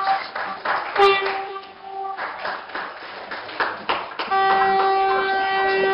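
Train horn sounding at a flag-off: a short steady blast about a second in, then a long unbroken blast from about four seconds in, over the noise of a crowd on the station platform.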